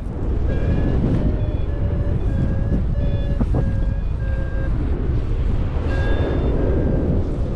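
Paragliding variometer beeping in short, evenly spaced beeps about twice a second, with a brief pause a little after the middle; the beeping climb tone signals rising air. Steady wind noise on the microphone is loudest underneath.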